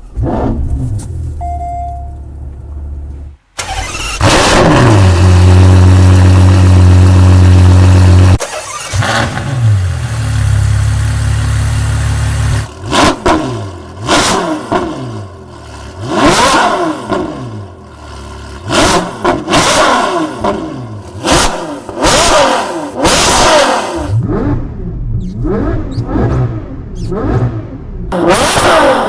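Ferrari Purosangue's naturally aspirated V12 engine starting a few seconds in, then held at high revs for several seconds before dropping off and holding again. It is then revved in a long series of quick throttle blips, its pitch rising and falling with each one.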